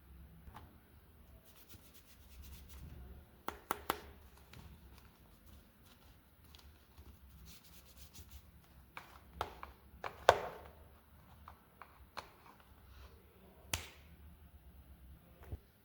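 Scattered light taps and clicks of small objects being handled, at irregular times, with the loudest knock about ten seconds in.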